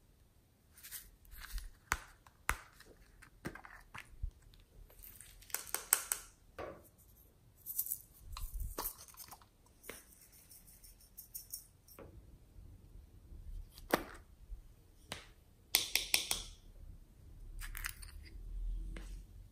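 Small plastic slime containers handled at close range: sharp clicks and snaps of lids and cases being opened, with a few short rattling bursts as their contents are shaken out onto a tray of slime.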